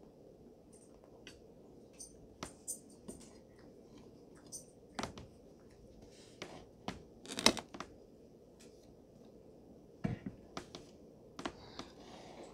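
Close-miked eating sounds: scattered chewing, mouth clicks and smacks of someone eating a toasted ham-and-cheese sandwich, with light taps of a fork against the plate. A louder cluster of clicks comes about seven and a half seconds in, over a faint steady room hum.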